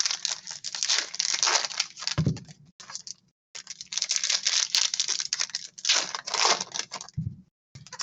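Foil trading-card pack wrappers crinkling and tearing open as card packs are handled, in two long stretches with a short pause between. Two soft low thumps, about two seconds in and near the end.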